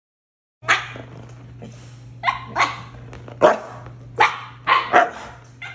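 Siberian husky barking, demand barks begging for food. About eight short, loud barks come in an uneven string, starting about half a second in.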